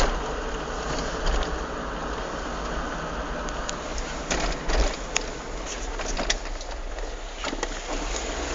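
Peugeot 306 cabriolet 1.6i on the move, a steady engine and road noise with a scatter of sharp clacks about halfway through. These are the kind of clacking this car makes when accelerating in a straight line.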